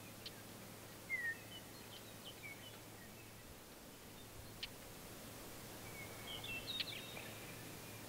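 Faint outdoor ambience with scattered short bird chirps. One falling chirp comes about a second in and a busier burst of calls near the end, with a few sharp ticks among them.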